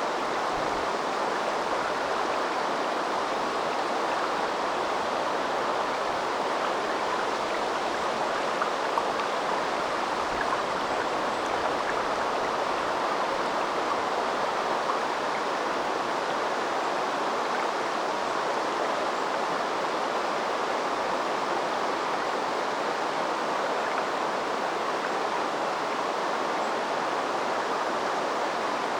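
River water flowing steadily, an even, unbroken rush of stream sound.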